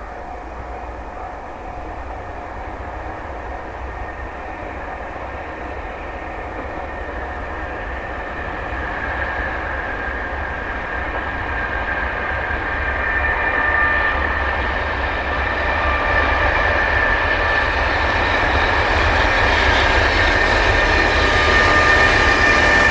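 Container freight train hauled by an EH500 electric locomotive approaching and passing close by, growing steadily louder. A few steady high tones grow stronger as the locomotive nears.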